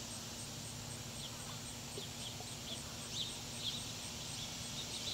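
Outdoor ambience: a steady hiss over a low hum, with a scatter of short, high chirps from about a second in. The chirps come a little stronger near the middle, and the swan itself does not call.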